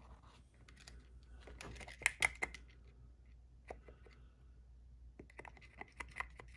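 Faint scattered clicks and light taps from handling a needle-spout oil bottle and cloth against a Singer 306K sewing machine while oiling it, in a cluster about two seconds in and again near the end.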